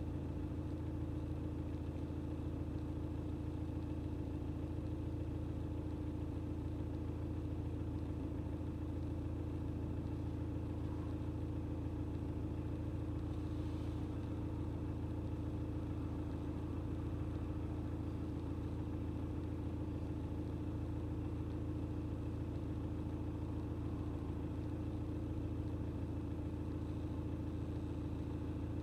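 Car engine idling steadily, heard from inside the car, with an even low hum that does not change.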